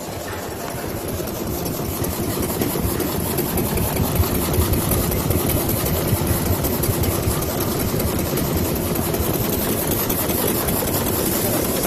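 High-speed automatic roll bag cutting machine running, a dense, fast mechanical clatter that grows louder over the first few seconds and then holds steady.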